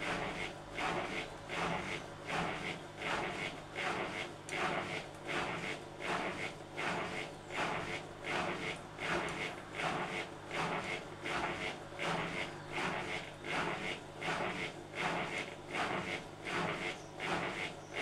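Hotpoint washer-dryer running, its turning drum making a rhythmic swishing noise that swells about three times every two seconds. Its owner hears the noise as a voice saying 'come on then, come on then'.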